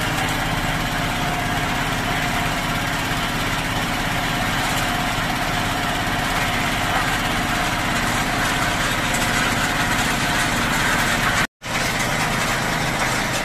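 Diesel engine of a well-drilling rig running steadily, driving the rig's pulleys and pump. The sound cuts out for a moment about three-quarters of the way through, then carries on.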